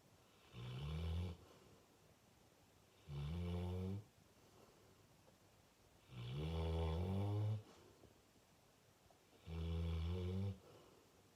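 A full-grown fox red Labrador retriever snoring loudly in its sleep: four long snores about three seconds apart, each sliding up in pitch at its start, the third the longest.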